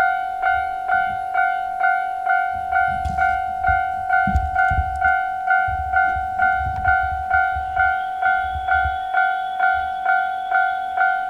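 Japanese level-crossing alarm bell ringing steadily, a two-tone electronic strike a little over twice a second, warning of an approaching train. A low rumble sits underneath from about three to nine seconds in.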